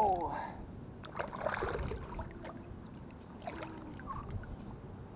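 A short wordless vocal grunt at the start, then water sloshing and splashing as hands work in the shallow pond water, with a few small knocks.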